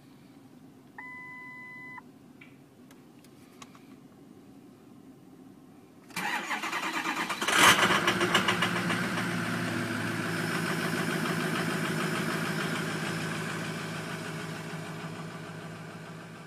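Ford Power Stroke diesel engine being started: a two-tone dash chime sounds briefly about a second in, then the starter cranks for about a second and a half before the engine catches loudly and settles into a steady idle that fades out near the end.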